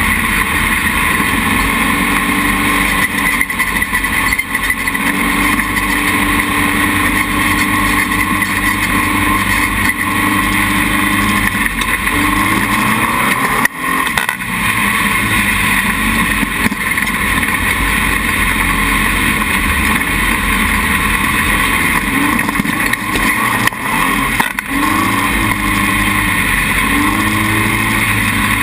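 Dune buggy engine running under way over sand, its pitch rising and falling, with a brief drop in sound about 14 seconds in.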